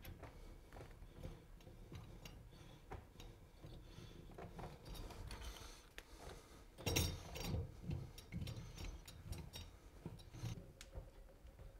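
Faint small metallic clicks and scrapes as the nut of a braided stainless-steel water supply line is threaded onto a chrome quarter-turn shutoff valve and tightened with a wrench, with a louder cluster of knocks about seven seconds in.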